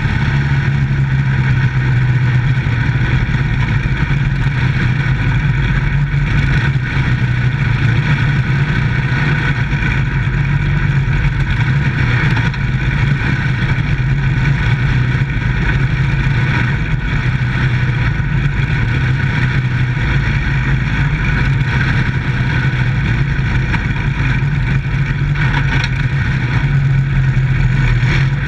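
Dirt track micro stock race car's engine running hard and steady as the car laps, heard from inside the cockpit, with little rise or fall in pitch.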